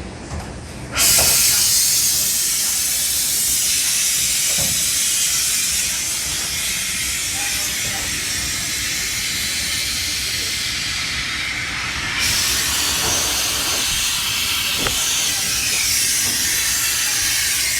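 Two-stage semi-hermetic Bitzer refrigeration compressor plant running, a loud steady hiss over a low rumble. The hiss jumps sharply louder about a second in, then holds steady.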